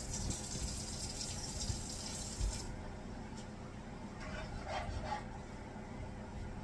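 Kitchen tap running, turned off about two and a half seconds in. A few faint utensil clinks follow.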